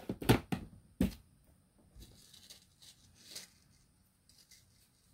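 Jewelry polishing cloth being handled and rubbed over a tarnished sterling silver necklace: a few sharp rustles in the first second, then fainter rubbing, wiping the tarnish off.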